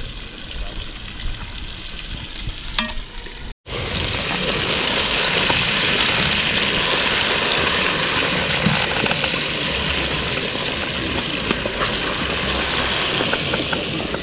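Food frying in hot oil: a steady sizzle that starts suddenly about three and a half seconds in, after quieter background with a few clicks.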